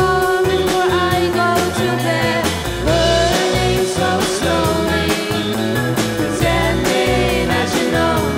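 A rock band playing live with a lead vocal, guitar, bass and drums, on a steady beat.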